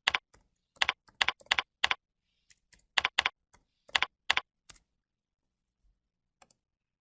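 Computer keyboard typing: about a dozen separate, irregular keystrokes, most of them in the first five seconds, with one or two more near the end.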